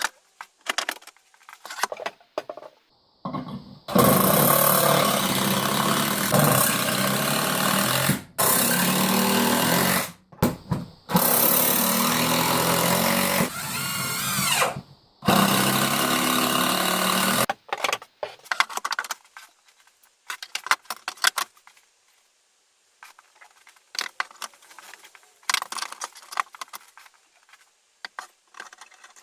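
Cordless impact driver driving screws into 2x4 pine, in about five long runs with short pauses between them. Light clicks and knocks come before and after the runs.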